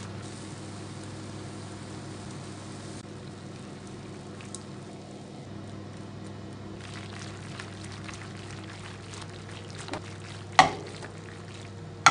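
Orecchiette and cherry tomatoes sizzling in a frying pan, over a steady low hum. Two sharp knocks near the end, about a second and a half apart, are the loudest sounds.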